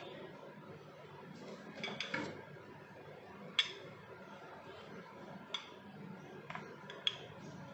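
Wooden rolling pin rolling out dough on a marble countertop, with several sharp clicks and knocks as the pin and hands touch down on the stone.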